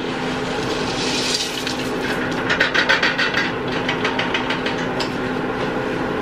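Steady hiss of a pot of water on the boil, with a low hum under it. Brief rustling and scraping about one and three seconds in as dry instant-noodle nests and a metal rack are handled.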